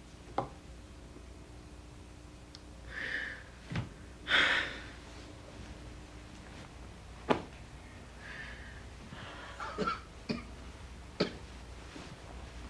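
A man breathing heavily and sighing several times, in distress, with a few soft knocks as he moves about the bed.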